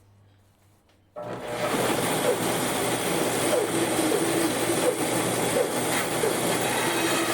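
A workshop power tool starts about a second in and runs steadily with a strong hiss.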